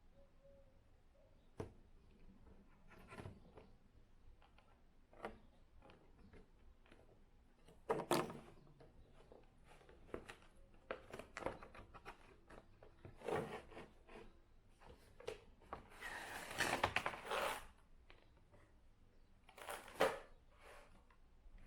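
Hands unpacking a die-cast model car from its cardboard box and plastic packaging: scattered clicks and scrapes, with short bursts of rustling, the longest about sixteen seconds in.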